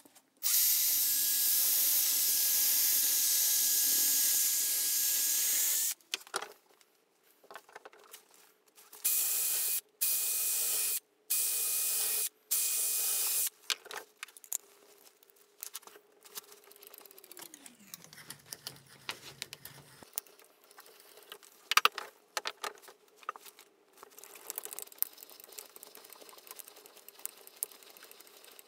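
Cordless drill drilling into wood: one run of about five seconds, then four short bursts a few seconds later. Near the end a hand brace with an auger bit bores into the wood, with irregular scraping and clicking as the shavings are cut.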